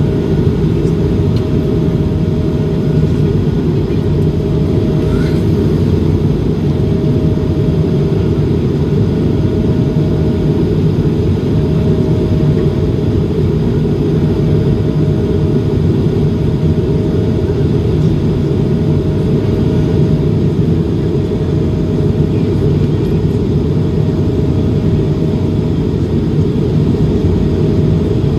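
Steady deep roar of an Airbus A220-300's engines and airflow in flight, with a faint hum that comes and goes about every two seconds.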